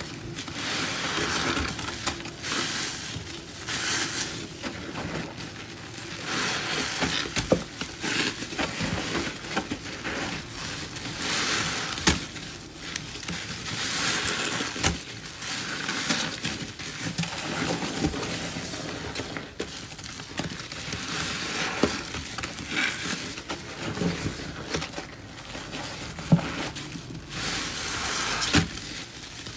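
Gloved hands repeatedly squeezing and kneading grout sponges loaded with a thick, foamy paste of pine cleaner and Comet cleanser: wet squelching and crackling foam in swells every second or two, with a few sharp clicks.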